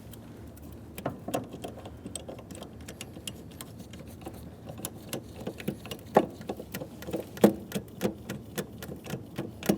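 Ratchet wrench clicking in quick, uneven runs as a 13mm nut is run down onto the door hinge's mounting stud. A few louder clicks and knocks come in the second half.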